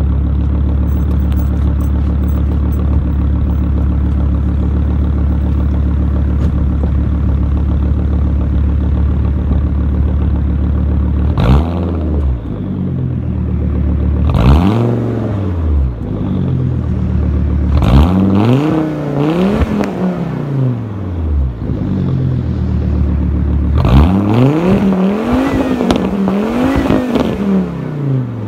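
Exhaust of a 1998 Volvo S70 with a swapped turbocharged 2.3-litre inline-five (B5234T3), heard at the tailpipe: it idles steadily, then is free-revved in short blips. There is one blip about a third of the way in and another a few seconds later, a pair past the middle, and three quick ones near the end.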